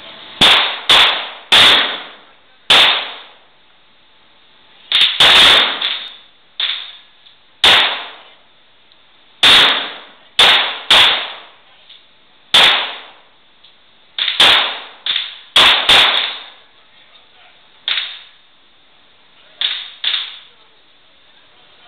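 Glock 9mm pistol being fired, about twenty shots at an uneven pace, some in quick pairs and strings, others a second or two apart, each shot trailing off in a short echo.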